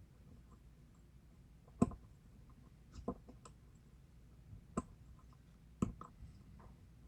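Lock pick and tension wrench working the pin stack of a Schlage KIK pin-tumbler lock: a handful of sharp, irregular clicks as pins are lifted and set.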